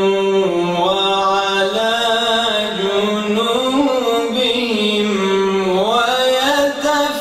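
A man's voice reciting the Quran in melodic tajweed style, holding long notes and bending them with slow ornamental turns, with a brief break for breath near the end.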